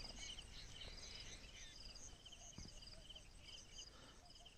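Faint field ambience with insects chirping in short, repeated high trills.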